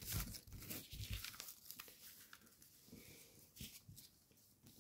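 Gold foil origami paper crinkling and rustling faintly as it is folded and handled, in a cluster of crackles over the first second or so, then only a few scattered crinkles.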